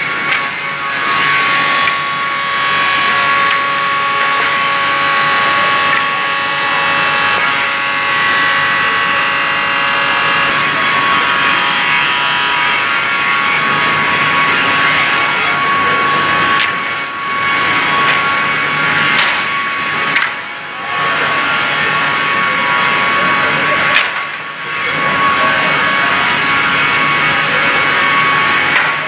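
Multi-blade rip saw running and cutting timber: a loud, steady whine of the blades through the wood, with a few brief drops in level in the second half.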